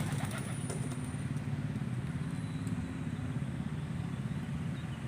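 A motor running steadily with a low hum, with a few faint clicks in the first second.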